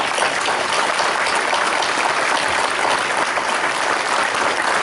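Audience applauding, a dense, steady clapping throughout.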